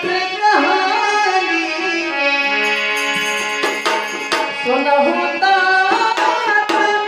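Bagheli Ramayan devotional folk singing: a voice holding long, sliding notes over sustained instrumental accompaniment, with a few drum strokes around the middle.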